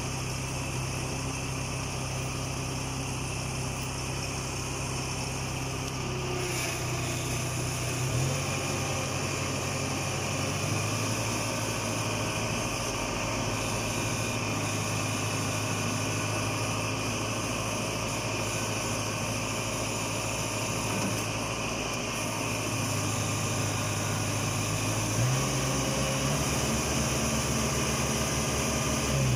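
Farm diesel engine running steadily under load while a stuck tractor is hauled out of mud, its pitch shifting about eight seconds in and again near the end.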